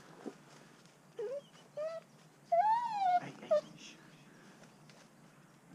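A lurcher whining in a few short, high, pitched whines. The longest, near the middle, rises and falls over about half a second.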